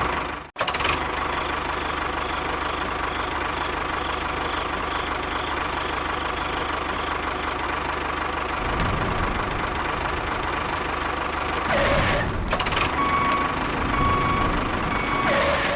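Engine running steadily, with a brief cut-out about half a second in and a change in its low rumble a little past the middle.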